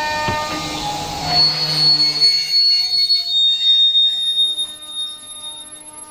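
Passenger train's horn sounding a chord, cutting off just under a second in with a short dip in pitch. Then a loud, high-pitched squeal from the train's steel wheels on the rails for about three seconds as it rolls slowly, fading towards the end.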